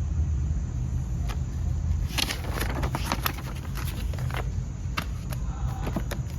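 Steady low rumble of construction machinery, with clicks and rustles of paper and packaging being handled, busiest from about two seconds in.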